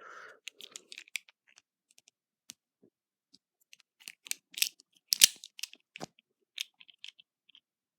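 Automatic folding knife being handled, giving an irregular run of sharp metallic clicks and snaps, the loudest about five seconds in.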